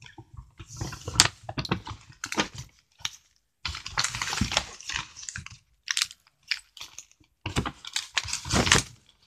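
Rustling and crinkling of product packaging being rummaged through and handled, with scattered clicks and light knocks, in irregular bursts that come thickest about a second in, around the middle and near the end.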